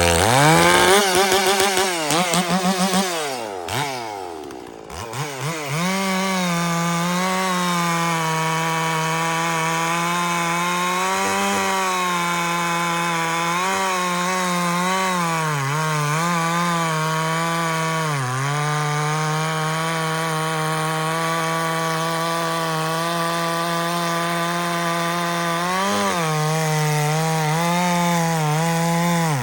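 Stihl 046 two-stroke chainsaw with a dual-port muffler, just drop-started, revving high, then falling off briefly about four seconds in. It then runs at steady high revs as its 28-inch full-skip chain cuts through a white oak log, the pitch dipping now and then as it bogs in the cut.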